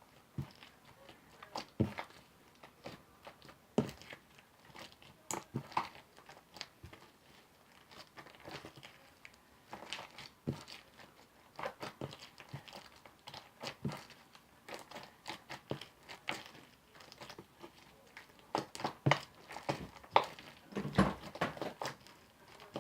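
Sticky homemade white-glue-and-soap slime being kneaded and stretched by hand. It makes irregular squishing with small clicks and pops.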